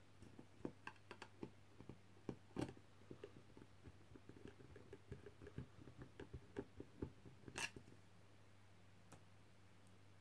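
Small screwdriver clicking and scraping against the screws as a camera board is screwed down inside a tube: a long run of light, irregular clicks, with two sharper knocks, one about two and a half seconds in and one near the end.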